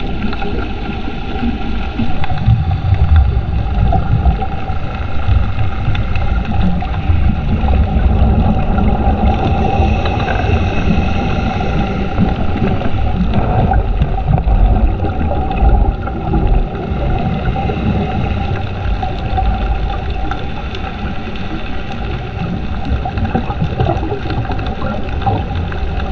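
Underwater sound picked up by a diving camera: a steady, fluctuating low rumble with a faint constant hum over it.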